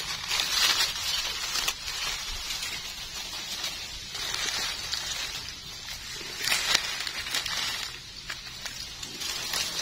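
Dry fallen leaves and grass rustling as gloved hands dig into the leaf litter, pick wild mushrooms and handle them, with a few louder rustles along the way.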